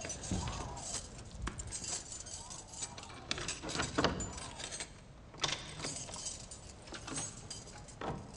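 A metal picklock worked in a door lock: small metallic clicks, scrapes and rattles, with a sharper click about four seconds in and another about a second and a half later.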